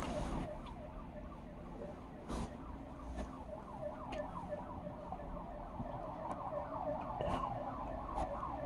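A siren wailing faintly in the background, its pitch sliding up and down, with a few light clicks.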